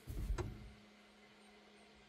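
Brief handling noise, a low rustling knock with a single sharp click about half a second in, then quiet with a faint steady hum.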